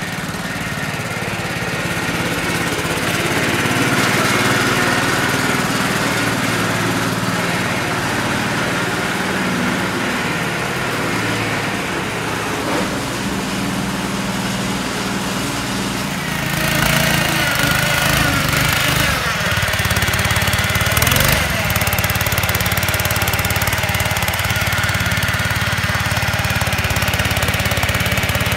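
The 6.5 hp petrol engine of a homemade mini tractor, converted from a rotary tiller, running steadily as the tractor is driven. It gets louder and harsher about halfway through.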